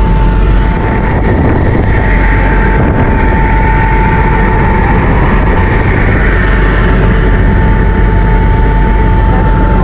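Helicopter in flight, heard from on board: loud, steady engine and rotor noise with a constant high whine.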